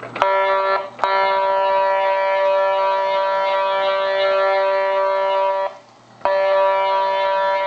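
Lionel toy train's electronic horn sounding: a short blast, then a long blast of about four and a half seconds, then another blast near the end. It is a loud, steady chord of several pitches.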